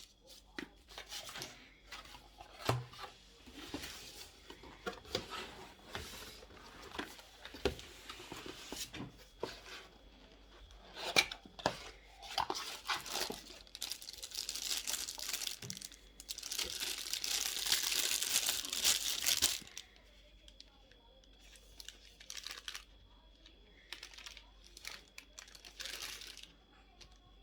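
Packaging being torn open and crinkled by hand: scattered rustles, crinkles and small clicks, with a longer, louder tearing stretch about two-thirds of the way through.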